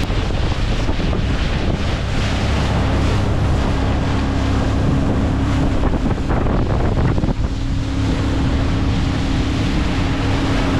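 Mini speedboat running fast across a lake: a steady engine drone under heavy wind buffeting on the microphone and the rush of spray off the hull. The engine note falls away briefly about six seconds in, then comes back.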